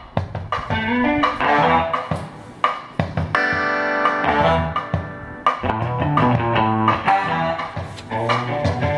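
Guitar music with bass played through a Radson MC 300 PA amplifier into a round ceiling-type speaker. It plays pretty loud, with plucked notes and a chord held for a second or so in the middle.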